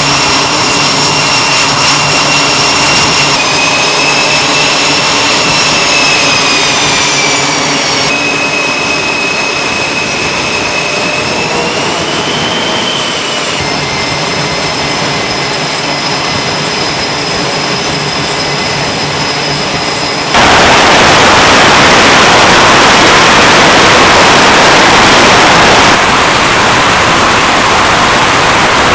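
Carrier aircraft jet engines: a steady high turbine whine whose pitch shifts at each cut. About twenty seconds in, a sudden, much louder, even roar takes over as an F/A-18 runs its engines up on the catapult for launch, easing slightly a few seconds before the end.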